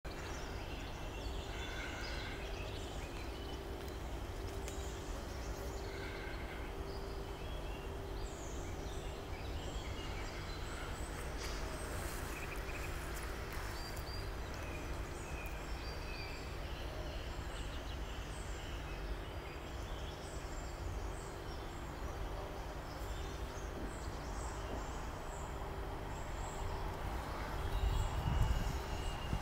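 Outdoor ambience: a steady low rumble with a faint continuous hum and scattered faint short chirps. A brief low rumbling surge near the end is the loudest moment.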